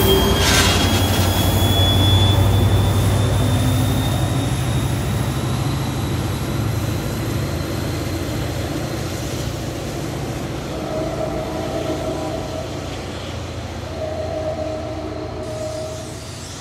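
Diesel commuter train pulling away, led off by a trailing NJ Transit EMD F40PH-2CAT locomotive: a deep engine drone and train rumble that fade steadily as it recedes. A thin high whine rises slowly in pitch through the first half.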